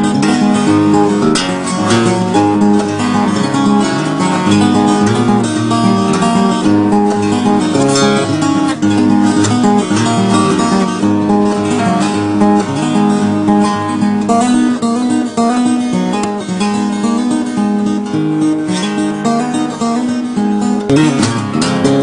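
Background music played on a strummed guitar, with the notes changing steadily.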